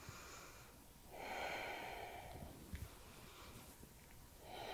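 A woman's audible breathing: one long breath about a second in and another starting near the end, with a faint low thump in between.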